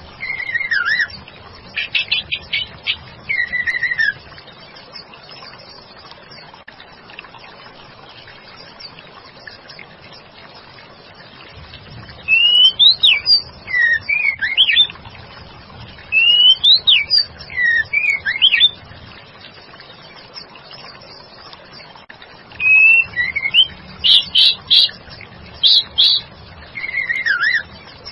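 White-rumped shama (murai batu) singing, presented as a female calling to a male. It gives bouts of loud whistled phrases with sliding notes and quick runs of rapid notes, with a long pause of several seconds in the first half.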